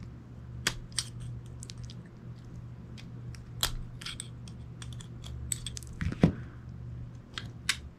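Small metal clicks and taps of a steel tool working the trigger spring in a Ruger New Vaquero revolver's grip frame, irregular and scattered, with a louder knock a little after six seconds.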